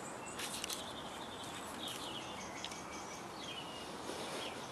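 Quiet outdoor night ambience: a steady low hiss with a few faint, short high chirps scattered through it, and a couple of soft clicks in the first second.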